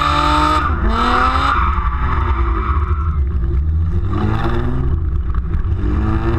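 Rally car engine revving hard, its pitch climbing and dropping repeatedly, with tyres squealing through about the first second and a half as the car spins in a donut. Heard up close from a camera mounted on the car's body.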